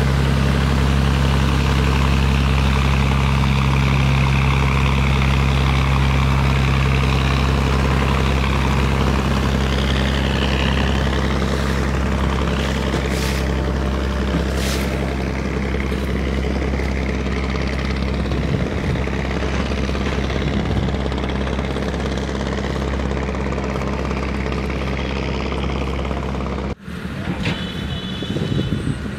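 Small wooden motorboat's engine running steadily, a constant low drone with a few fixed pitches and a hiss of wind and water over it. Near the end it cuts off abruptly, leaving quieter wind and water noise.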